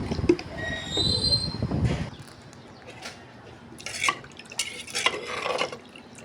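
Rumbling noise for about two seconds with a brief high squeak, then metal utensils clinking and scraping against a cooking pot a few times.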